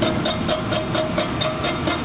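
Milling machine running: a steady mechanical noise with a rapid, regular pulse about four to five times a second.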